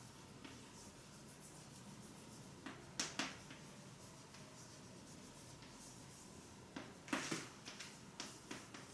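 Faint scratching of a pen or marker writing, in two short clusters about three seconds in and about seven seconds in, with a few lighter ticks near the end, over quiet room tone.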